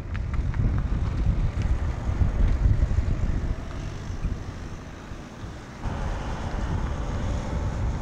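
A Volkswagen Tayron SUV driving past on an asphalt road, its engine and tyre noise mixed with heavy wind rumble on the microphone, loudest in the first few seconds as it goes by, then fading. About six seconds in the sound changes to a steadier hum with a faint steady tone.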